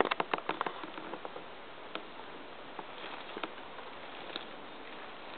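Footsteps through dry twigs and leaf litter on a forest floor: a quick run of crackles and snaps in the first second, then occasional single cracks over a steady background hiss.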